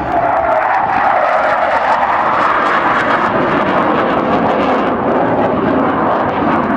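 Douglas A-4 Skyhawk jet making a low fly-past, its turbojet a loud, steady roar. A whining tone in it drops in pitch in the first second as the jet goes by.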